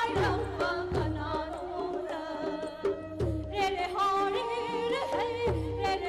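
Pena, the Manipuri single-string bowed fiddle, playing a melody with singing voices, over a few low drum beats.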